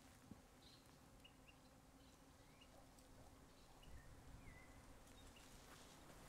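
Near silence with faint natural ambience and a scatter of short, thin bird chirps, about half a dozen single notes.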